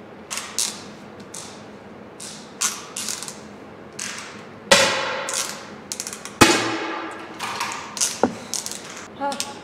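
Clicks, knocks and creaks of a scoped Steyr air rifle being mounted, swung and lowered, mixed with the rattling, ratchet-like run of running-target machinery. A single sharp crack a little over six seconds in is the loudest sound.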